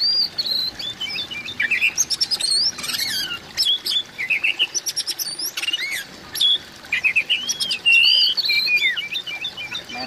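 Oriental magpie-robin singing a varied song of clear whistles, slurred rising and falling notes and quick chattering phrases, with brief gaps between phrases.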